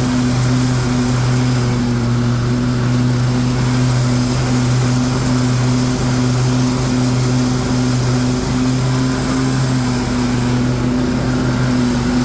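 A Troy-Bilt Mustang XP zero-turn mower's 24 hp Kohler V-twin engine running steadily with the cutting blades engaged, mowing grass.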